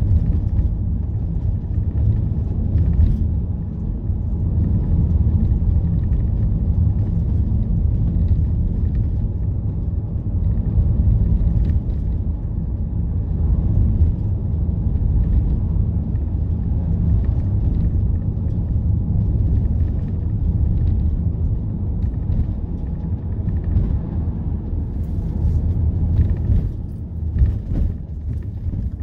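Steady low rumble of road and engine noise inside the cabin of a moving Volkswagen T6 van, dipping briefly near the end.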